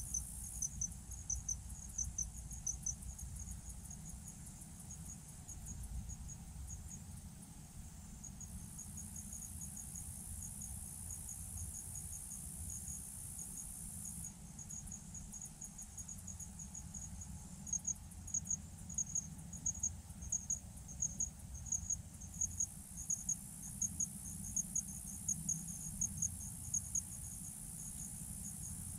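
Crickets chirping in a steady run of short, high chirps, louder from about two-thirds of the way in, with a higher, continuous insect buzz that cuts in and out for several seconds at a time.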